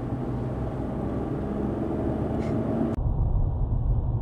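Dashcam recording of a moving car's engine and road noise. About three seconds in it cuts abruptly to another recording that sounds duller and is mostly a steady low rumble.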